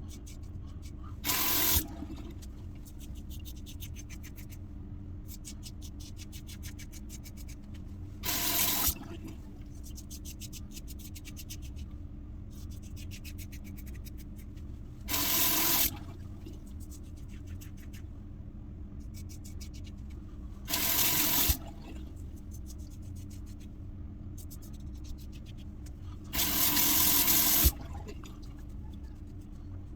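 Water running from a tap in five short bursts, about every six seconds, the last one the longest. Between them, quick crackly scraping of a safety razor with a Gillette 7 o'clock Sharp Edge blade cutting through lathered stubble.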